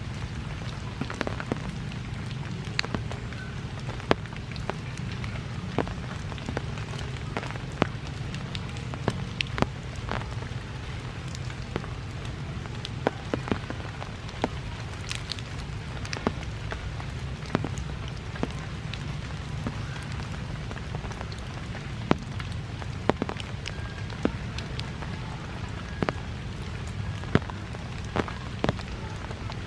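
Steady rain falling, with scattered sharp clicks several times a second throughout.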